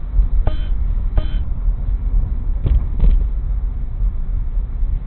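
Car driving, a steady low rumble of road and engine noise heard from inside the cabin. There are two short pitched beeps about half a second and just over a second in, and two light clicks about three seconds in.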